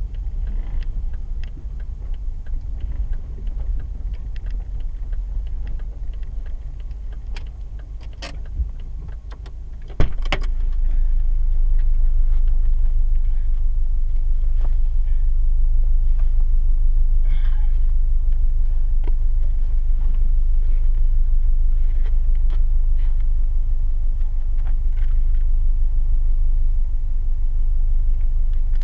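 Car driving on lake ice, heard from inside: a steady low rumble with scattered short knocks and clicks, and a sharp knock about ten seconds in, after which the rumble is louder. The owner reports an abnormal noise from the left rear on this drive.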